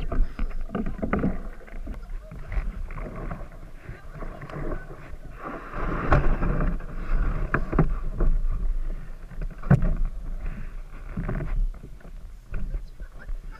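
Canoe moving on a lake: water splashing and lapping at the hull in uneven swells, over a low rumble of wind on the camera microphone, with a few sharp knocks, the loudest about six and ten seconds in.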